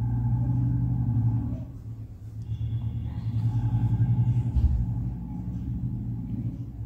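Paneer cubes frying in shallow oil in a nonstick pan as they are turned with a fork, heard as a low, crackling rumble that swells twice. There is a single knock about four and a half seconds in.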